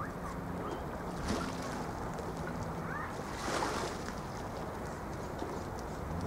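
Sea waves washing against the shore under steady wind noise, with two louder splashes about a second in and about three and a half seconds in. A faint, steady low engine hum from a ship runs underneath.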